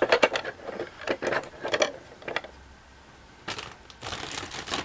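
Small hard-plastic dollhouse furniture clicking and knocking against a plastic toy house as the pieces are set in place: a quick run of sharp taps in the first two seconds or so, a few more about three and a half seconds in, then a soft rustle near the end.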